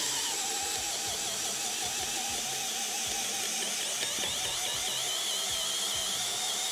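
WORX WU377 20V cordless hammer drill boring a 40 mm auger bit into stacked pine boards, its motor running steadily under load with a wavering whine. It pulls through without bogging down, a sign of plenty of torque.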